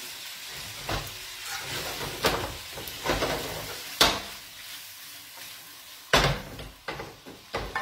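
Pasta with guanciale and a splash of pasta water sizzling in an aluminium frying pan on a gas burner while it is stirred and tossed. Sharp knocks of the pan and utensil come every second or so, the loudest about four seconds in as the pan is flipped.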